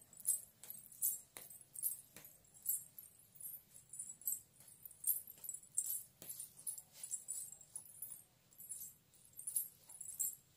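Small silver ghungroo bells on bridal toe rings and anklets jingling with each step, in short bursts a couple of times a second.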